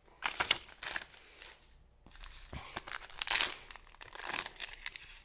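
Foil booster-pack wrapper crinkling and tearing open, in several bursts of rustling.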